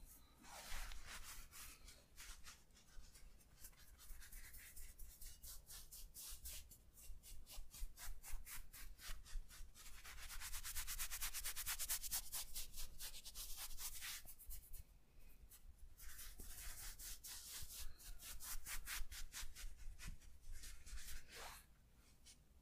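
Hands rubbing briskly over skin in a massage, a long run of quick back-and-forth friction strokes. The strokes are fastest and most even from about ten to fourteen seconds in, with short pauses between bouts.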